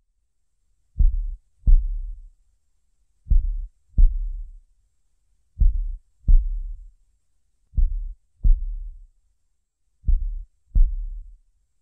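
Slow heartbeat sound effect: paired low thuds, lub-dub, repeating about every two and a quarter seconds, five pairs in all.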